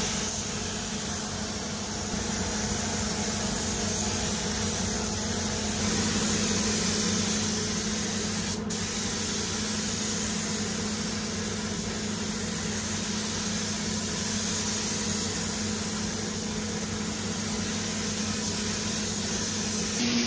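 Gravity-feed spray gun spraying the second coat of blue paint onto a car body: a steady hiss of compressed air, with a constant low hum underneath.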